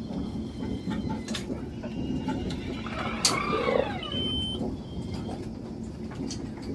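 Steady low rumble of a moving train heard inside the carriage. About three seconds in there is a sharp click and a brief falling whirr, then two short high beeps.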